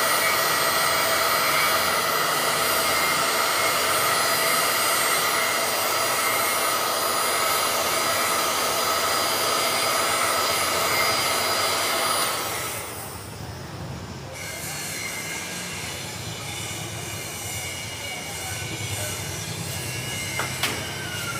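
An electric heat gun blowing hot air with a steady whine, curing a high-density plastisol ink print on a T-shirt. A little past halfway through, the sound drops away to a faint hiss.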